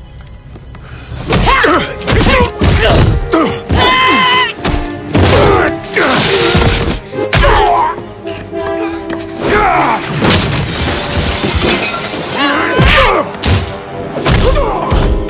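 Movie fight sound effects: a rapid series of heavy thuds, blows and crashing debris, mixed with short grunts and shouts, over a dramatic music score.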